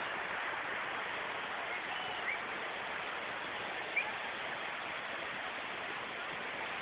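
Steady rush of flowing river water over rocks, with a couple of short high chirps over it.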